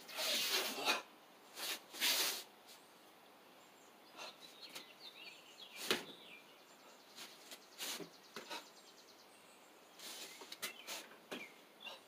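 A karateka performing a kata: short hissing bursts with the techniques, several in the first two and a half seconds, sharp single ones about six and eight seconds in, and a cluster near the end. Faint bird chirps sound in between.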